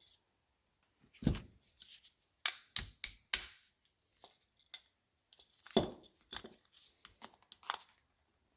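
Small metal parts of a Honda N600 carburetor and hand tools clicking and knocking as the accelerator-pump linkage axle is pushed out and its washers are taken off. It is an irregular series of sharp clicks, with the loudest knocks about a second in and again near six seconds.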